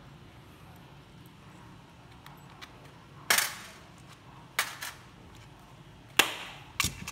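Brass clock movement parts clacking sharply against metal and the bench as they are taken out and set down: several separate knocks, the loudest about three seconds in and about six seconds in.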